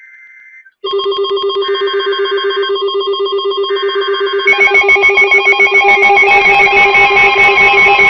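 NOAA Weather Radio SAME data bursts for a new warning. From about a second in they are joined by a weather alert receiver's loud alarm, a steady tone pulsing about four times a second. About four and a half seconds in, a second, higher set of alarm tones joins.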